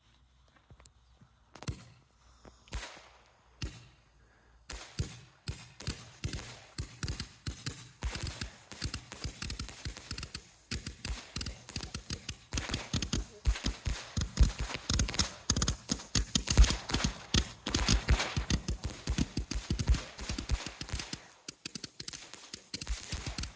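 Tropic 'Gatling' 198-shot firework cake firing: a few single launches spaced about a second apart, then from about five seconds in a rapid, continuous machine-gun-like stream of shots that gets denser and louder towards the middle.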